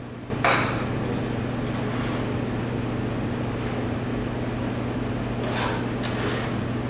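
A few short scrapes of a blade on a plastic cutting board as diced tomato is pushed into a bowl: one sharp scrape about half a second in, and two softer ones near the end. A steady low hum runs underneath.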